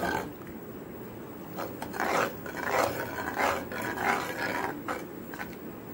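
Steel ladle stirring thin sambar in a non-stick pan, a rhythmic scrape and swish against the pan about once every 0.7 s, starting about a second and a half in.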